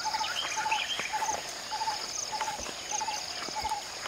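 Wild outdoor ambience: an animal repeats a short, rapid trilling call about twice a second over a steady high insect drone, with scattered bird chirps.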